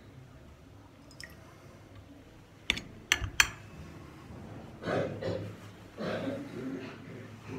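Ritual hand-washing at Mass: a few drops of water fall into a metal basin, three sharp clicks come close together about three seconds in, and then comes the soft rustle of a cloth towel twice as the priest dries his hands.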